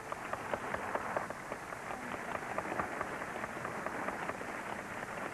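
Audience applauding: a dense, irregular patter of hand claps.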